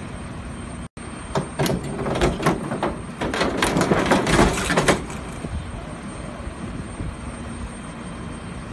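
Steady aircraft apron noise, with a burst of louder, irregular noise from about one and a half to five seconds in.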